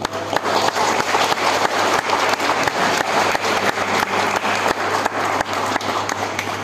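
Group of people clapping, starting suddenly and dying down near the end.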